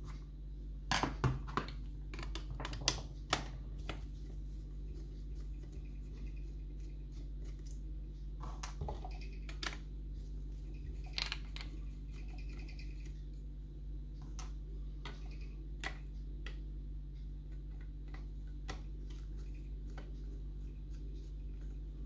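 Screwdriver unscrewing the case screws of a lever mortice lock: scattered small metallic clicks and taps, a few louder ones close together in the first few seconds, then sparser. A steady low hum runs underneath.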